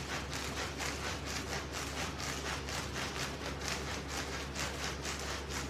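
Weighted hula hoop spinning fast around a man's waist: a steady rhythmic swishing, about four strokes a second.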